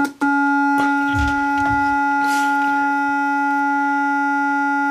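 A sine tone of about 300 Hz from a signal generator played through a home-built class B audio amplifier (BD743C/BD744C output transistors, BD139 driver) and its loudspeaker. After a click as the lead connects, it is a loud, steady, annoying buzzy tone thick with overtones. The overtones are the amplifier's distortion: a flawed circuit that does not amplify the sine wave properly.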